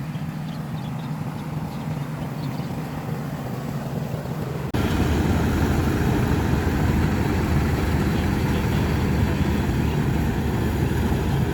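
An engine running steadily. A little less than halfway through, the sound jumps suddenly to a louder, rougher engine noise that holds steady.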